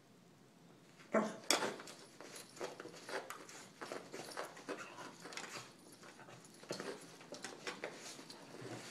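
A beagle's sounds up close: a run of short, irregular scuffs and clicks, the loudest just after a second in.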